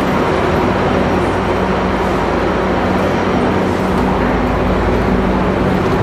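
Steady, loud din of a busy train-station passenger tunnel: a crowd of travellers walking with rolling suitcases, over a steady low hum.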